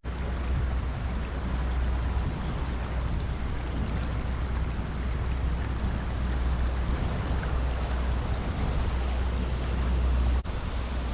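Steady rushing of water pouring over a dam spillway, with wind rumbling on the microphone; it breaks off for an instant about ten seconds in.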